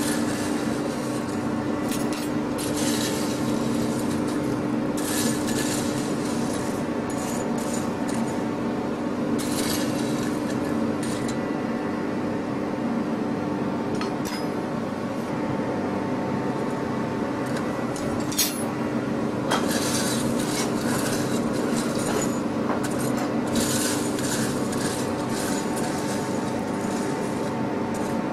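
Iron bars and tongs clinking and scraping against each other on a coal forge hearth in irregular short spells, over a steady hum from the forge's air blower.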